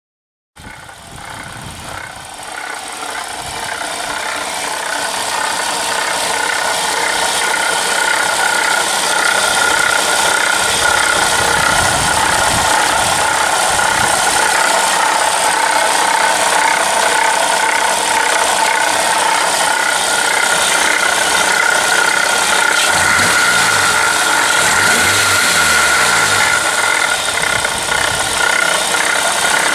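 Running engine of a 2007–2013 Toyota Corolla, heard close up in the engine bay, making a bad mechanical noise: a steady whine over a harsh hiss. It starts half a second in and grows louder over several seconds, then holds steady. The uploader's tags point to the water pump as the source.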